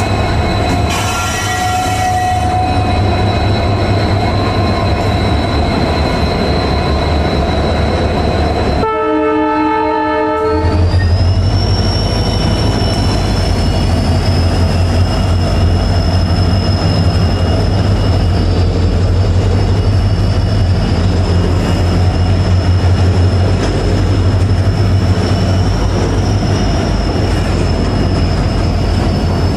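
Twin EMD WDG4 diesel-electric locomotives, each powered by a two-stroke 16-cylinder EMD 710 engine, running with a steady low hum. About nine seconds in, a locomotive horn sounds for about a second and a half. After it, a high steady whine rises briefly and then holds above the hum.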